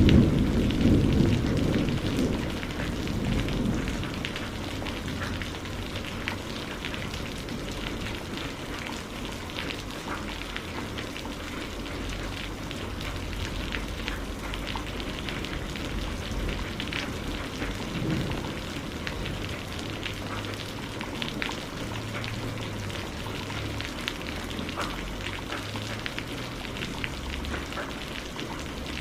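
Steady rain with a patter of small drops. A low rumble of thunder at the start fades away over the first few seconds, and a fainter rumble comes about two-thirds of the way through.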